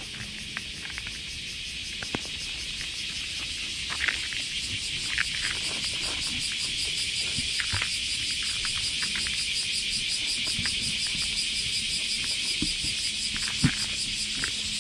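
Steady, fast-pulsing buzzing of summer cicadas in the trees. Close by, a cat chews dry kibble from a paper bowl, making scattered short crunches and clicks.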